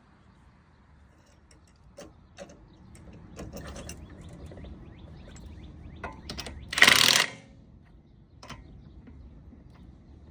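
Scattered clicks and metallic clinks of hand tools working on a wheel, with one brief loud burst of noise about seven seconds in.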